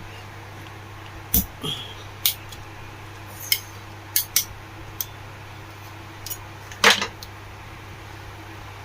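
Small metal parts and tools clicking and tapping against each other while a table fan motor's new bush and bush plate are being fitted. There are about eight sharp, separate clicks over several seconds, the loudest and most ringing one about seven seconds in, over a steady low hum.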